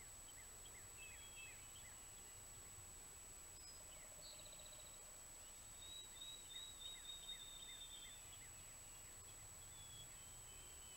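Faint dawn chorus of songbirds: scattered short chirps, with a high trill about six to eight seconds in, and a faint low rattling call about four seconds in. A steady high-pitched electronic whine runs underneath.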